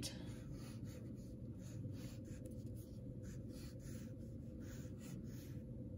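Graphite pencil scratching on paper in a series of short strokes, about two to three a second, as small square shapes are drawn. The strokes stop shortly before the end.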